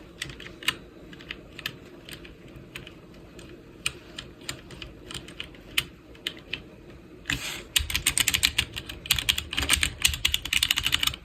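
Keystrokes on a HyperX 60% mechanical keyboard: scattered single key presses at first, then fast continuous typing, louder and denser, from just under eight seconds in until it stops abruptly.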